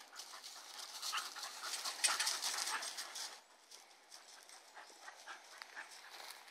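Two dogs playing, panting and scuffling, loudest in the first three seconds and then quieter.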